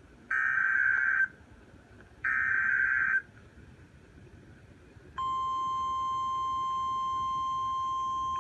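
NOAA Weather Radio emergency alert signalling: two one-second bursts of SAME digital header data, a second apart, then about five seconds in the steady 1050 Hz warning alarm tone starts and holds. Together they mark the start of a new alert.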